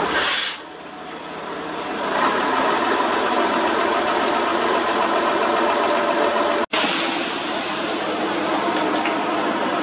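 Diesel engine of heavy road-works machinery running steadily, getting louder over the first couple of seconds, with a short hiss of air right at the start.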